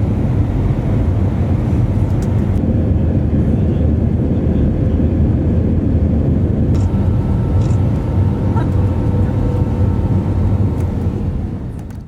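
Steady low rumble of a vehicle in motion, with a faint steady hum above it; it fades out right at the end.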